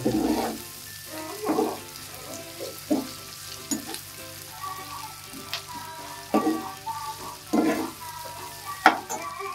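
Roughly chopped onions sizzling as they fry in hot oil and ghee in a nonstick kadhai over a high flame, stirred with a spoon that scrapes through the pan in strokes about every second or so.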